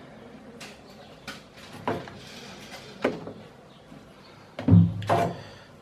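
Scattered light knocks and clicks, then a louder dull thump about four and a half seconds in, from handling and bumping about at the washing machine.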